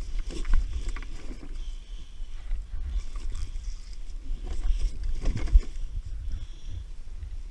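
Wind rumbling on the microphone over a plastic sit-on kayak, with a few knocks and water splashes as a fish is handled over the side. The loudest knocks come about half a second in and again around five and a half seconds.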